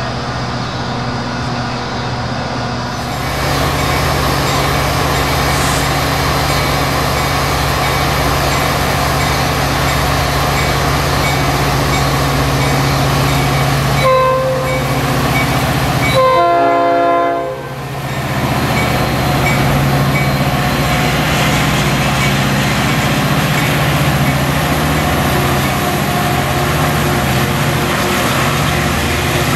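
Metra EMD F40PH-3 diesel locomotive running with a steady low engine drone as it moves its commuter train through the station. Its horn sounds a short blast about 14 seconds in and a longer blast of about a second and a half a couple of seconds later.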